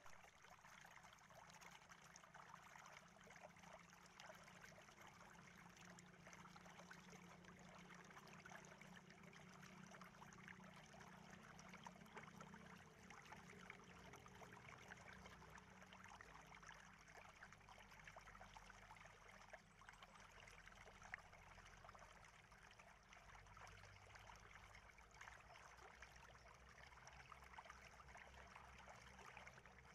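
Near silence: faint steady room tone with a low hum and hiss.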